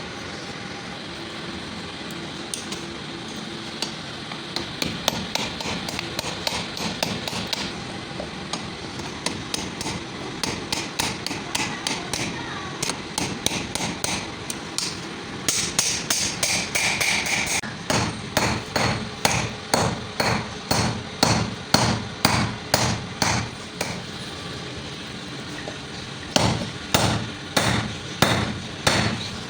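Hand hammer striking the steel of a cut-down drill bit, forging it into a knife blade. There are steady repeated blows at about two a second, with a short pause near the end before they resume, over a constant background noise.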